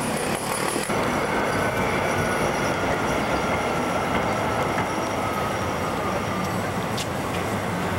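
City street traffic with the long, high squeal of tram wheels on rails, drawn out over several seconds and falling slightly in pitch. A sharp click comes about seven seconds in.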